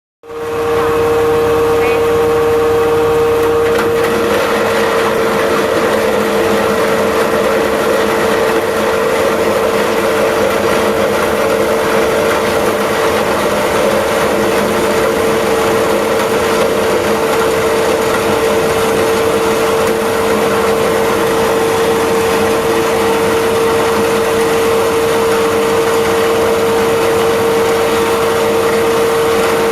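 Corn cob crusher mill running steadily, with a strong, even whine over a loud grinding and motor noise.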